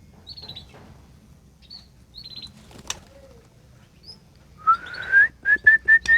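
Small songbirds give short high chirps, with wing flutters. About four and a half seconds in comes a loud rising whistle, then a run of short, even whistles at one pitch.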